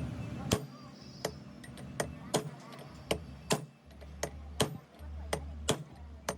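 Hammer strikes on metal in a steady rhythm, about two sharp knocks a second, as a monoblock pump's bearing is worked on.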